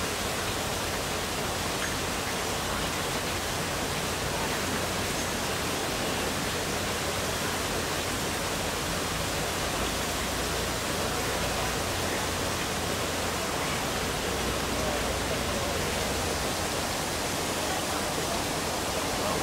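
Water rushing steadily at a canal lock: an unbroken, even hiss that neither rises nor falls.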